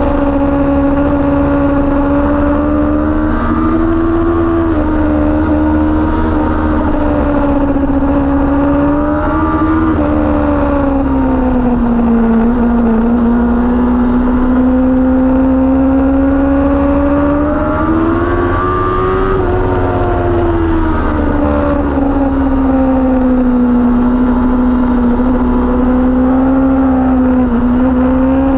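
Kawasaki ZX-10R's inline-four engine running at high revs on track, its pitch rising and falling gently with the throttle through corners, over low wind buffeting on the microphone.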